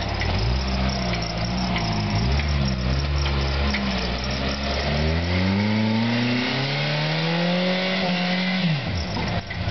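Rock crawler's engine working under load up a steep climb, its revs going up and down in the first half, then rising steadily to a high held rev and falling off near the end.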